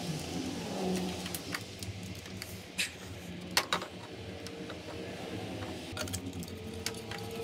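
Hands fitting a replacement LED headlight and its wiring connector into a Jeep Wrangler JK headlight bucket: a few sharp clicks and knocks, loudest a little before and a little past halfway, over a steady low hum.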